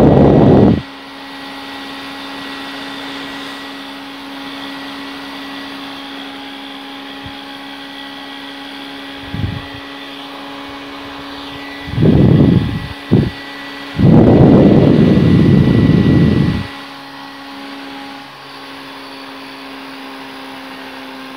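Small battery-powered Nishika Mr. Cool 007 rechargeable desk fan running with a steady motor hum. Loud rumbling gusts of wind noise, where its airflow hits the microphone, come at the start, briefly about halfway through, and twice more about two thirds of the way in, the last lasting over two seconds.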